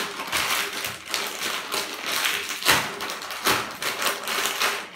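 Lay's potato chip packets crinkling and crackling as they are handled and torn open, in irregular quick crackles, the sharpest about halfway through.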